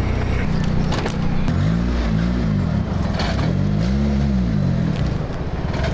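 Nissan S13 Silvia's four-cylinder engine running as the car is moved, its revs rising and falling twice.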